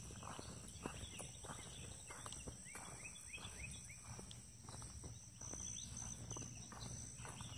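Faint outdoor sound of a person's footsteps while walking, with a bird giving a run of short rising chirps about two to three seconds in, over a steady high-pitched whine.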